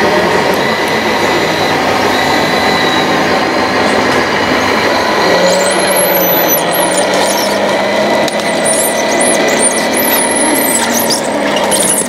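Radio-controlled Komatsu D65PX model bulldozer driving on its tracks: a steady mechanical whir of the drive and running gear, with thin high squeaks coming in from about halfway through.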